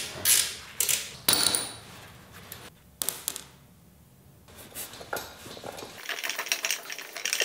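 Metal clicks and clinks from a wrench working on a Honda CB750K's exhaust pipe hardware: a few sharp separate clinks at first, then a quick run of small clicks near the end.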